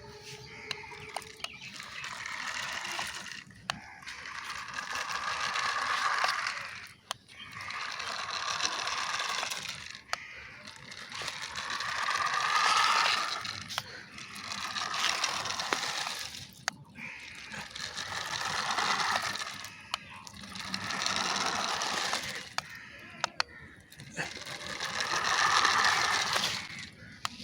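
A homemade remote-control car's small DC motor and gearing whirring in repeated runs of a few seconds each, swelling and fading, with scattered sharp clicks.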